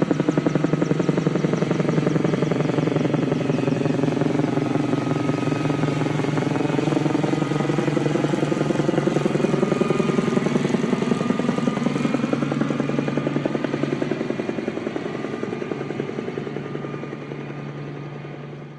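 Helicopter in flight: fast, even rotor-blade chop over a steady low engine hum, its pitch bending slowly, fading out near the end.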